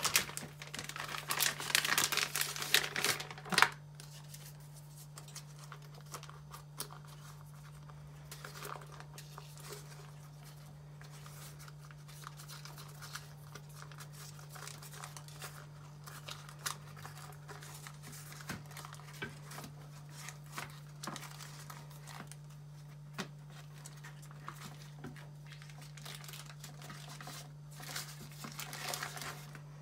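Crinkling and tearing of the wrapper of a roll of ready-rolled dough being opened, loudest and densest in the first few seconds. Then soft rustling and light taps of baking paper as the dough is unrolled and smoothed flat on a metal baking tray, with more paper crinkling near the end. A steady low hum runs underneath.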